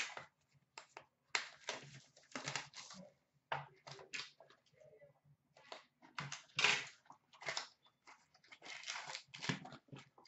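Trading card packs being torn open and cards handled: irregular rustling and crinkling of pack wrappers and card stock in short bursts.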